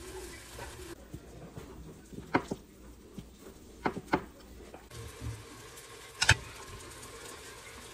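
A spatula clinking and scraping against a glass container and a wok as stir-fried pork is scooped out: a few light clinks between two and four seconds in, then one sharper knock a little after six seconds.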